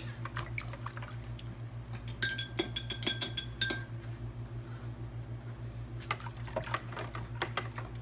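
Dye water being swished and stirred with chopsticks in a plastic tub, with light liquid sloshing and taps of the chopsticks. About two seconds in comes a quick run of ringing clicks lasting a second and a half, and more scattered taps near the end, over a steady low hum.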